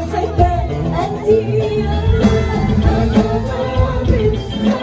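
Live Arabic pop music: a band playing, with a woman singing.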